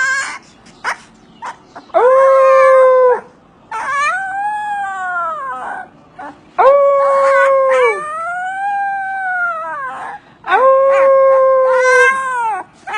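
Husky howling in a series of five long drawn-out calls, some held at a level pitch and others rising then falling, with short breaks between them.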